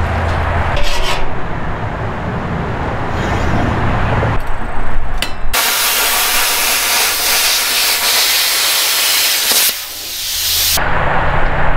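Handheld air plasma cutter slicing through a flat steel strip: a loud, steady hiss that starts about halfway through and cuts off sharply near the end. Before it, a low mechanical hum with scattered clicks.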